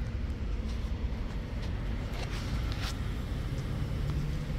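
Steady low rumble of outdoor parking-lot ambience, with a few faint clicks about halfway through.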